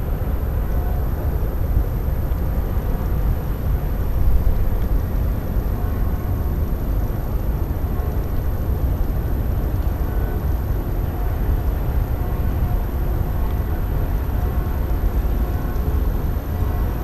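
Steady low rumble with a faint hum from a heavy-lift cargo ship's engines as it passes along the river, swelling briefly about four seconds in.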